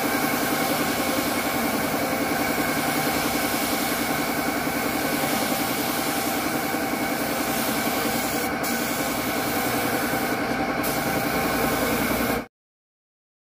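Air compressor running steadily to feed a paint spray gun, with the hiss of the spray over it, as a motorcycle fuel tank is sprayed. The sound cuts off abruptly near the end.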